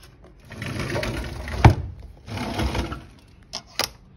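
Wooden cabinet drawer and steel tape measure being handled: a rattling slide ending in a sharp knock about halfway through, a second shorter slide, then two light clicks.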